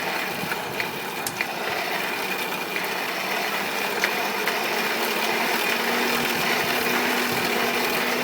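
A small motor running steadily with a constant rush of air, most likely a blower feeding the fire, with a few light clicks in the first few seconds.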